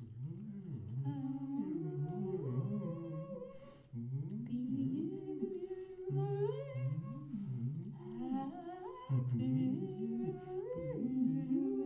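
Two voices humming, wordless, in overlapping pitches: a low note held steady under lines that slide up and down. The humming breaks off and starts again about four and nine seconds in.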